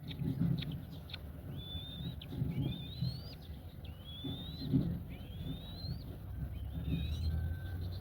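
A bird giving a series of thin whistled calls, each rising in pitch and lasting about half a second, repeated roughly once a second. A few short ticks come near the start, over a low rumble with soft thumps.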